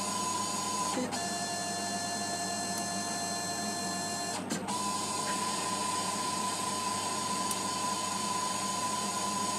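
Emco PC50 CNC lathe running a threading pass on a brass rod, with the spindle turning and the stepper-driven axes giving a steady electric whine. From about one second in to about four and a half seconds a second, higher set of whining tones joins in as the carriage feeds along the rod. It ends with a brief click, and then the single steady tone carries on.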